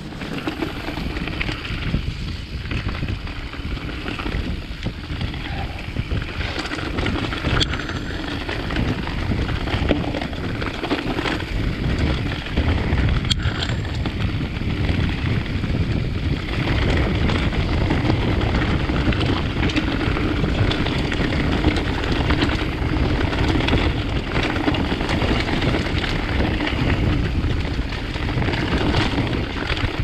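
Riding noise from a downhill mountain bike run: wind buffeting a chest-mounted GoPro's microphones over the sound of the tyres rolling on a leaf-covered dirt trail, with scattered knocks and rattles from the bike. It grows a little louder about halfway through.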